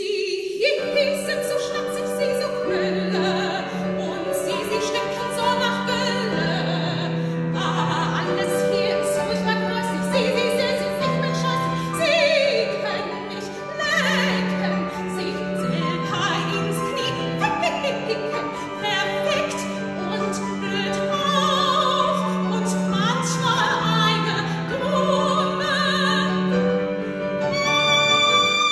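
Soprano singing an operatic aria in full classical voice with wide vibrato, accompanied on a Yamaha digital piano. Near the end she holds a loud high note.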